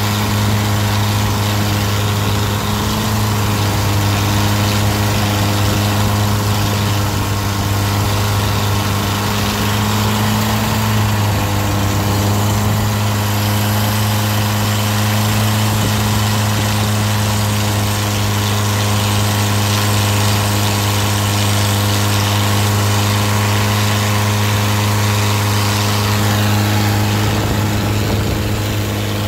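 Engine of a narrow wooden river boat running steadily at cruising speed, a constant low drone with overtones, over the hiss of water rushing and spraying along the hull.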